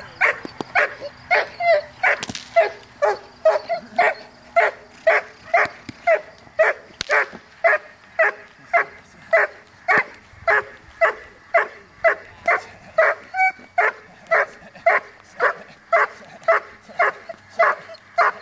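Doberman barking in a steady, unbroken rhythm of about two barks a second: the sustained bark of a dog in protection work facing a helper.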